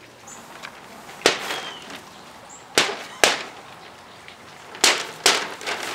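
Five sharp cracks from a giant prop egg as it begins to hatch, spaced irregularly over a few seconds.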